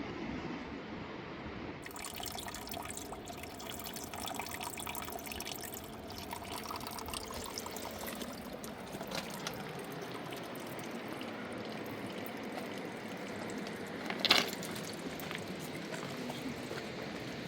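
River water rushing and splashing steadily, with one sharp knock about fourteen seconds in.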